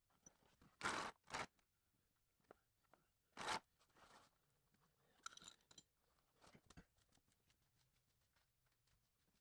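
Near silence broken by a few short scraping, crunching noises, the loudest about a second in and again about three and a half seconds in.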